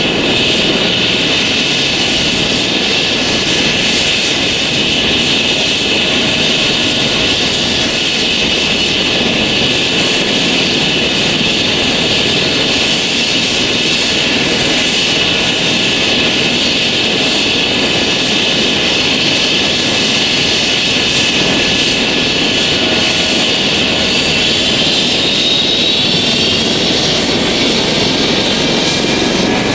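Airbus H135 helicopter's twin turboshaft engines running with a steady high turbine whine over a loud rush; the whine rises slightly near the end.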